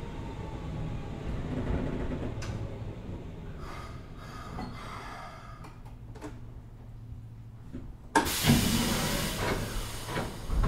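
Keikyu 800 series electric train with Mitsubishi field-chopper control, heard from inside the car. It slows with a fading, falling whine and some rattles and knocks as it comes to a stop. About eight seconds in, a sudden loud hiss of air starts as the pneumatic doors open.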